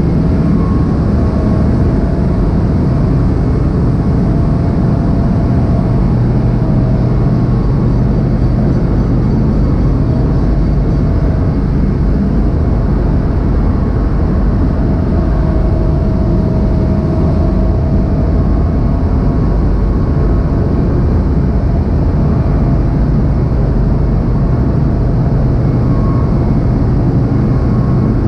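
Ship's engine-room machinery running: a loud, steady, low drone that does not change.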